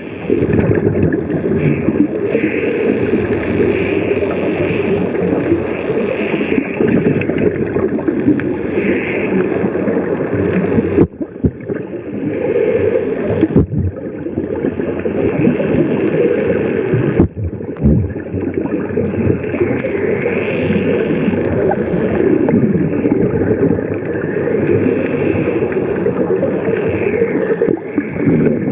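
Muffled underwater noise through a camera housing, with a scuba diver's regulator breathing and exhaled bubbles gurgling every few seconds.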